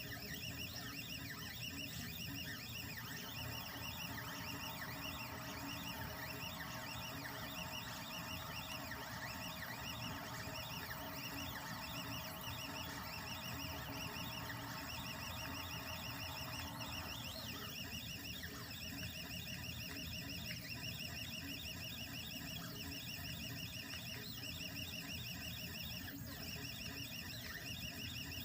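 Cobblebot 3D printer running a print: its stepper motors whine in rapid, repeating pitched chirps as the head moves back and forth, over a steady hum. The pattern of the chirps changes a little past halfway through.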